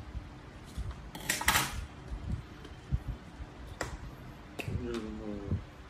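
Scissors snipping paper and then set down on a table with a metal clatter, loudest about a second and a half in, followed by a few small sharp clicks as a plastic glue stick is picked up.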